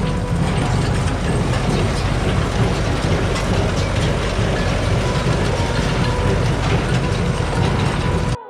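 Heavy farm machinery running: a steady low engine drone with mechanical clattering and rattling. It cuts off abruptly near the end.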